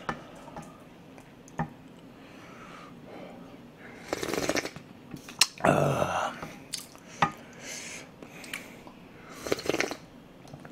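A person sipping and slurping hot pork soup broth (dwaeji gukbap), with three loud slurps about four, six and nine and a half seconds in. Short clicks of utensils against the bowl and pot come in between.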